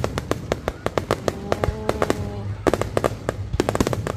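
Fireworks display: a rapid, uneven run of sharp bangs and crackles, several a second, as shells burst overhead.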